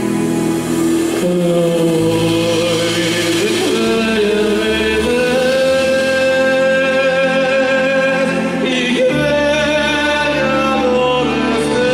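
Live medieval-style song: a man sings long, high held notes with a slow waver over sustained accompanying chords and a low drone that shift to new pitches a few times.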